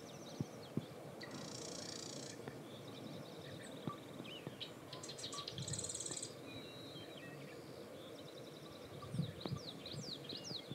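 Marsh wren singing: buzzy, rattling trills repeated several times, with short descending calls from other birds near the end and a few soft knocks.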